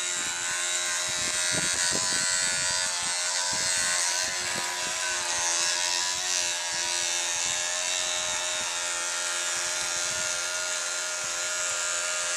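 Battery-powered oscillating electric toothbrush buzzing steadily as its brush flaps a plastic paddle to drive a milk-carton toy boat. Gusts of wind buffet the microphone underneath.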